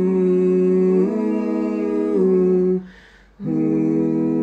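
Layered, multitracked male humming: several voice parts hold long chords together in harmony. The chord shifts about a second in and again near two seconds, breaks off briefly around three seconds, then comes back on a new held chord.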